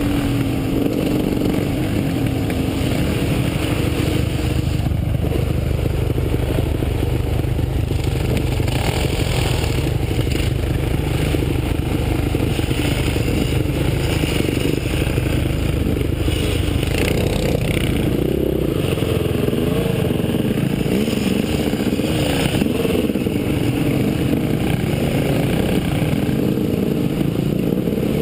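KTM enduro dirt bike engine running under a rider's throttle, heard from the rider's helmet, with other trail bike engines close by. The pitch rises and falls repeatedly in the second half as the throttle is opened and closed.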